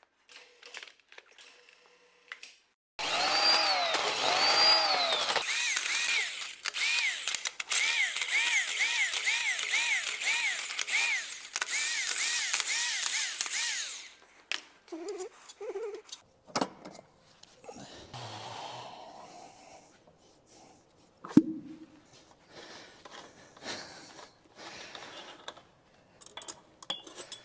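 A handheld power tool running in short pulses, its whine rising and falling, slowly at first and then about twice a second, for about ten seconds. After it come light metal clinks and one sharp knock about two thirds of the way in.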